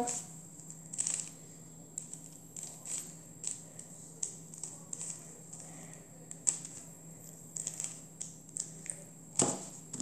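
Plastic layers of a 3x3 Rubik's cube clicking as they are turned by hand, in separate turns about once a second, with a few quicker turns near the end.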